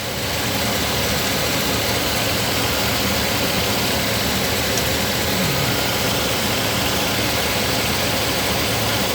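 2004 GMC Yukon's V8 engine idling steadily, heard from underneath the truck.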